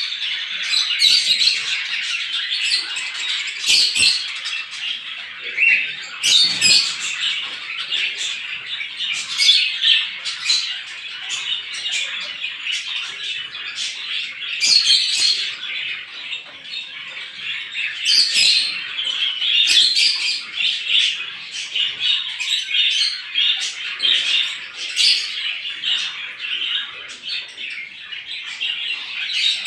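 Many small birds chirping together in a dense, unbroken chorus of overlapping calls, with louder sharp chirps standing out every second or two.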